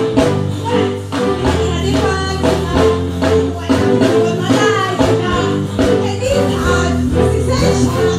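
Live band playing loudly through the stage sound system, with drum kit, bass and guitar and a steady beat, while a woman sings into a microphone over it.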